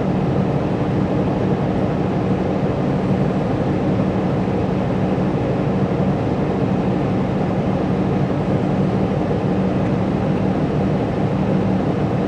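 2016 Ram ProMaster van engine idling steadily, with no change in the sound as the halogen headlights are switched on and off.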